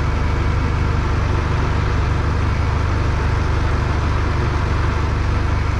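JCB 3CX backhoe loader's diesel engine running steadily, a constant low rumble with no change in pitch or level.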